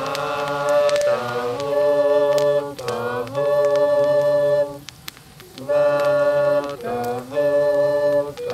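Music: several voices singing long held notes in harmony, phrase after phrase, each note sliding up into pitch, with a longer pause about five seconds in.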